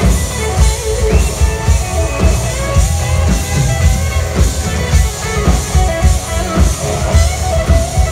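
Live rock band playing loud: electric guitars, bass guitar and drum kit, with a steady drum beat throughout.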